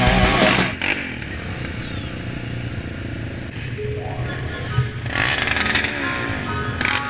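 Several quad-bike (ATV) engines idling together, with revs rising and falling now and then. A rock song cuts off under a second in.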